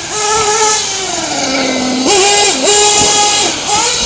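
Small high-pitched nitro engines of 1/8-scale RC racing trucks revving on and off the throttle. The pitch sags slowly over the first two seconds, jumps sharply about two seconds in, then drops briefly a few times as the throttle is blipped.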